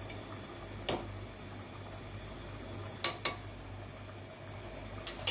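A few sharp clinks of a spoon against a cooking pot: one about a second in, two in quick succession around three seconds in, and two more near the end. Between them a pot of chicken curry simmers over a steady low hum.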